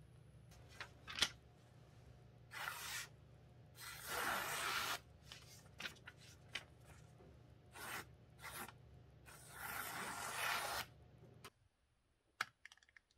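Paper towel rubbed along the blade of a deba knife, wiping it down in several strokes of about half a second to a second and a half each, after a couple of sharp clicks. Near the end the rubbing stops and there is one faint click.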